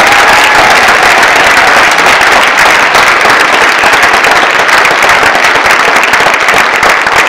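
Audience applauding loudly: dense, steady clapping from many hands.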